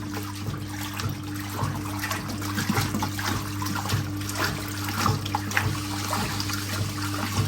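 Water trickling and splashing into the tub of a 1958 Hotpoint Empress washing machine as it is topped up, over the steady hum of its running motor and agitator.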